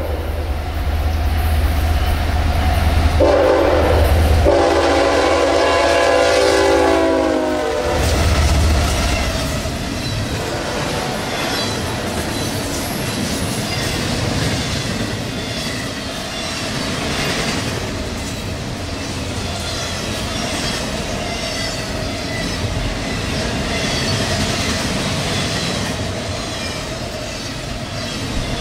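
Two CSX GE diesel locomotives approach with their engines running and sound a multi-note air horn, loudest from about three to eight seconds in. After the locomotives pass, double-stack container cars roll by with a steady wheel clatter and a steady ringing tone over it.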